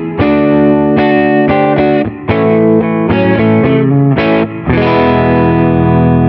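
Rock N' Roll Relics Heartbreaker electric guitar played with distortion, pickup selector in position 3: a run of short strummed chords, then a chord struck near the end and left to ring.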